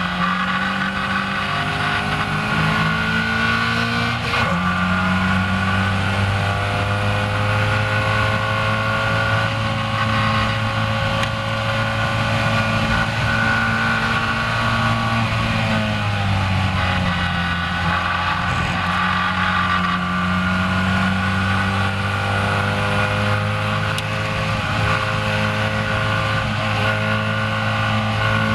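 A Caterham Seven race car's engine at full throttle, heard from the open cockpit. It revs up hard with a gear change about four seconds in, then holds high revs near 100 mph with a brief dip around the middle before pulling again, over a steady rush of wind.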